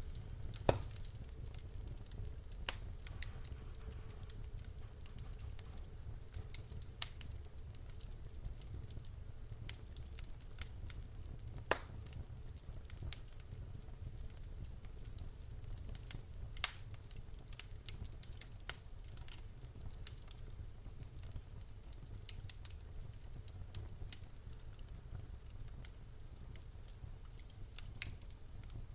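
Wood fire burning in a fireplace: logs crackling and popping in scattered sharp snaps over a steady low rumble of the flames.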